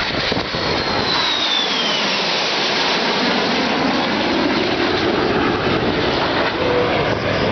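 Jet engines of a formation of four jet aircraft flying past: a steady rushing roar with a high whine that falls in pitch about a second in as the aircraft pass.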